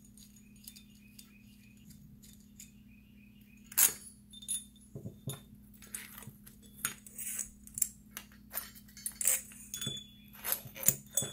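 Brass lamp fittings and milk glass parts clinking and clicking against each other as a small lamp is taken apart by hand. The clinks are scattered, with a sharp one about four seconds in and more coming thickly in the second half.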